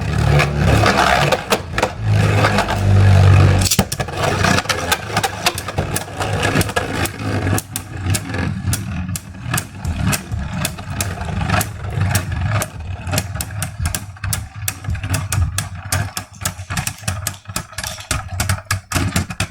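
Beyblade spinning tops whirring and clashing in a plastic stadium: a loud whir with a low hum for about the first four seconds, then a steady run of sharp clacks as the tops collide.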